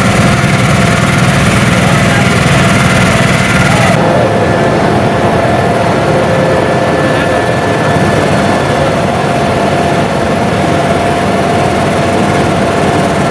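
Fire-service vehicle engines and spray pumps running steadily during disinfectant spraying: a loud, even drone with a steady whine. About four seconds in, the high hiss drops away.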